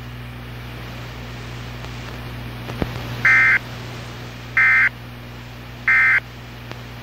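NOAA Weather Radio SAME end-of-message code: three short bursts of warbling data tones, each about a third of a second long and about a second and a quarter apart, marking the end of a warning broadcast. A brief click comes just before, over a steady low hum and hiss from the radio recording.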